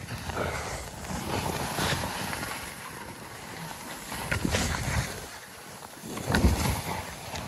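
Skis hissing and scraping through snow in a run of turns, rising and falling with each turn, with wind rushing over the phone's microphone. A few short knocks, the loudest about six and a half seconds in.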